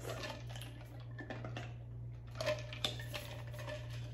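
Drinking from an insulated tumbler, then light clicks, taps and rustling as the cup is handled, over a steady low hum.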